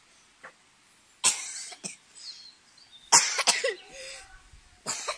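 A person coughing, three loud bouts about two seconds apart, some with a second short cough straight after.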